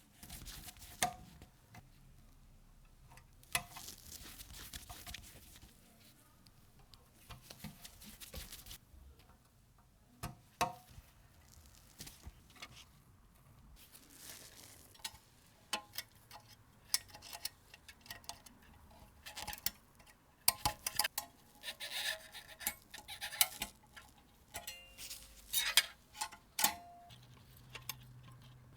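Ensign Ful-Vue box camera being handled and reassembled: scattered light clicks and taps of small metal and plastic parts, with stretches of rubbing or wiping in the first several seconds and a busier run of clicks in the last third.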